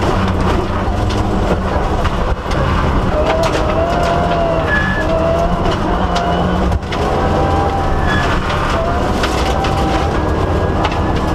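Mitsubishi Lancer Evolution VIII rally car heard from inside the cabin at speed on a gravel stage: its turbocharged four-cylinder engine runs hard, with a whine that rises and falls in pitch. Gravel clatters against the car, and the engine sound dips briefly twice.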